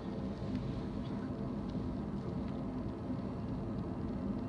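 Empty intermodal freight train rolling past: a steady low rumble of wheels on the rails, with a few faint clicks above it.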